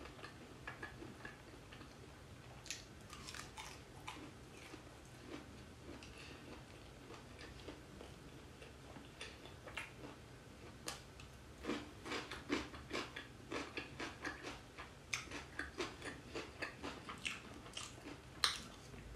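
A person chewing and biting fried chicken with corn and cheese close to the microphone: faint, wet mouth clicks and smacks, sparse at first and coming thick and fast in the second half.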